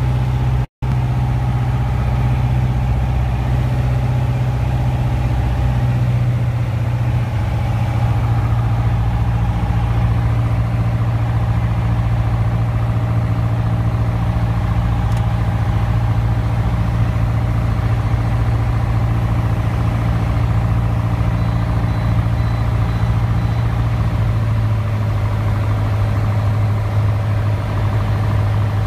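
Single-engine propeller plane's engine and propeller droning steadily in flight, heard from inside the cockpit. There is a brief break in the sound under a second in, and the pitch settles slightly lower near the end.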